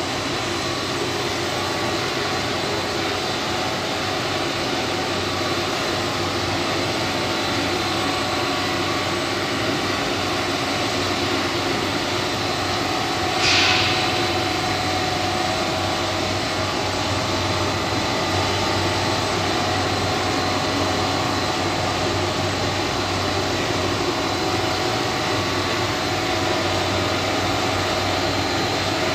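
Stretch-film making machine running: a steady mechanical hum with a thin high whine. A short hiss comes about halfway through.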